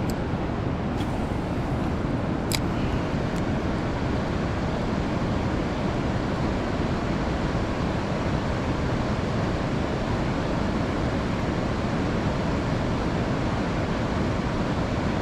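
Steady rush of flowing creek water, with a couple of faint sharp ticks in the first few seconds.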